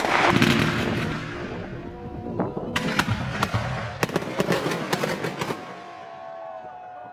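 Fireworks going off: sharp bangs, then a quick run of crackling reports. About five and a half seconds in the bangs stop, leaving a soft held music note that fades.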